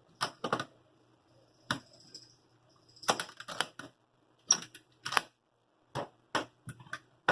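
Irregular sharp clicks and clacks of a padlock being unlocked with its key and taken off an old Craftsman toolbox, then the box being handled open; the sharpest knock comes near the end.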